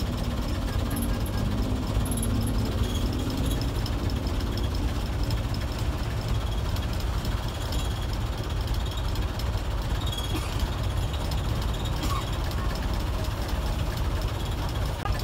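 Steady rumble of an old medium bus's 1990s Mitsubishi diesel engine, heard from inside the passenger cabin.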